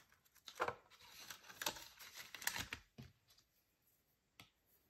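Paper banknotes rustling and crinkling against a clear plastic binder pocket as they are slid back into a cash envelope, in short scrapes for about two and a half seconds. Near the end comes a single light tap, a stylus touching the tablet screen.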